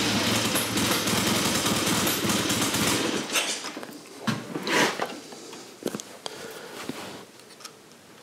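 Triumph Tiger T100's 500 cc parallel-twin engine, freshly rebuilt on top, running at fast revs for about three seconds, then dropping to a quieter idle with a ticky sound. The mechanic suspects a blow at the head gasket.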